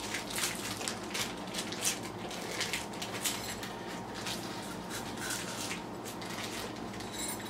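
Small clear plastic hardware bag of tack nails crinkling and rustling as it is handled and the nails are picked out, a run of short irregular crackles.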